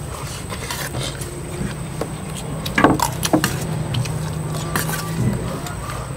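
Scattered clicks and clinks of tableware during a meal, the loudest a little under three seconds in, over a steady low rumble.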